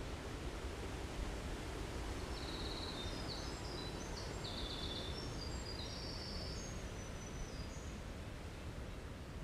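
Winter wren singing: a long, unbroken run of rapid, high-pitched trills and notes that starts about two seconds in and lasts some five seconds. Behind it is a steady low outdoor rumble.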